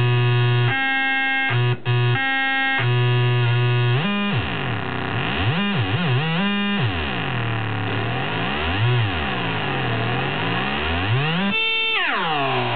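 Circuit-bent Texas Instruments Speak & Spell making harsh, buzzy electronic tones. For about four seconds it holds stepped tones broken by short gaps. After that its pitch sweeps up and down in repeated glides, with its pitch range opened up, and near the end a sharp jump leads into a long falling sweep.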